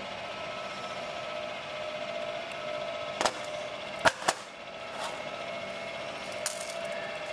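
Steel parts clicking and tapping against each other as a ball bearing and shaft are handled in a flanged steel housing: a few sharp clicks, the loudest two in quick succession about four seconds in. A steady mechanical hum runs underneath.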